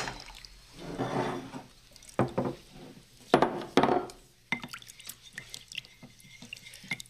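Liquid being poured and splashed into a glass bowl in a few short pours, then a wooden spoon stirring the mixture and tapping against the glass.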